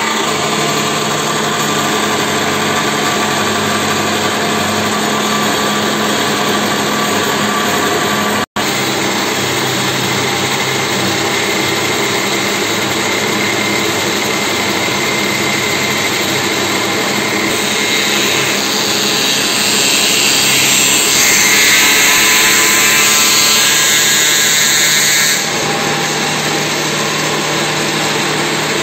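Belt-driven workshop woodworking machine running steadily with a low hum. A short break in the sound comes about eight seconds in. From about seventeen seconds in, a louder, higher noise joins for some eight seconds as the machine works the wooden plank, then cuts off suddenly.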